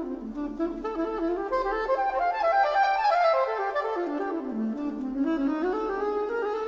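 Instrumental background music, with several melodic lines moving at once; the lowest line steps down in pitch through the middle and climbs back up near the end.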